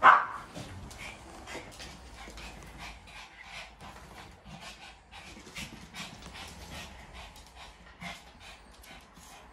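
Shih tzus panting and moving about, claws clicking on a hard floor, after one loud sharp burst right at the start.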